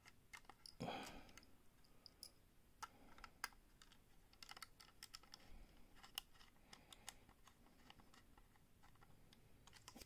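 Faint, irregular small metal clicks and ticks of a precision screwdriver turning the screws that hold an SSD in its metal drive bracket, with a soft handling knock about a second in.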